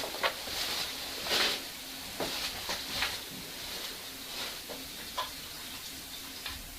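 Faint indoor household noises: a few small clicks and knocks and two or three soft hisses, over a low steady hum.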